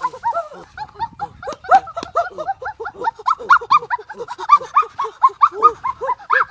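High-pitched, sped-up cartoon-style voices chattering and giggling in quick, short rising-and-falling syllables, a dubbed comedy voice effect, with a few sharp clicks mixed in.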